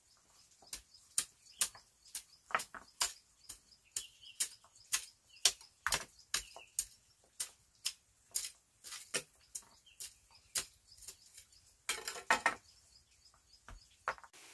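Flat stones knocking and clacking against each other as they are set by hand into a stone paving, a run of irregular sharp knocks about twice a second, with a brief burst of rattling near the end.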